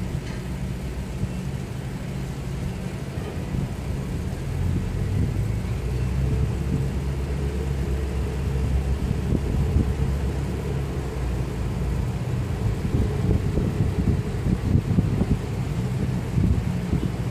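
Low, steady rumble of engines. Irregular wind buffeting on the phone's microphone joins in during the second half.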